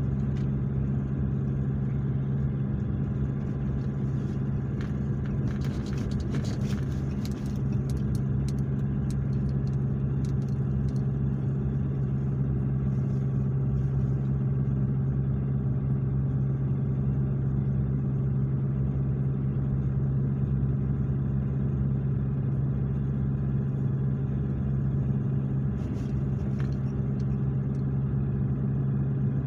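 Pickup truck driving at a steady low speed, heard from inside the cab: an even engine and road hum with a constant low drone. A few brief clicks come about five to seven seconds in and again near the end.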